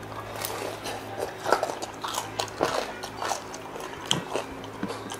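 Close-up biting and chewing of crispy deep-fried pork knuckle skin (crispy pata): irregular sharp crunches several times a second, the loudest about a second and a half in.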